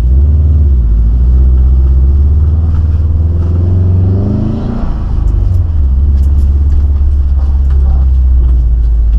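Turbocharged flat-four engine of a 2014 Subaru WRX with an Invidia Q300 exhaust, running loud and steady under way, revs rising from about three seconds in and dropping back near the middle.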